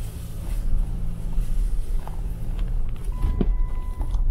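Jeep Wrangler Rubicon running at low revs as it crawls along a bumpy dirt forest trail, a steady low rumble with scattered knocks and clicks. A steady high tone comes in about three seconds in.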